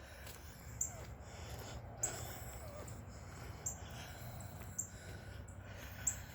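Birds calling, mostly one short, high chirp repeated about once a second, with a few fainter lower notes, over a steady low rumble.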